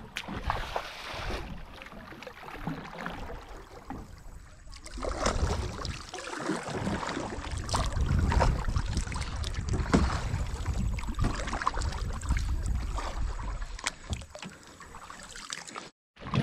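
Kayak paddle strokes in a shallow creek: blades dipping and splashing, with water dripping off them, under a low wind rumble on the microphone.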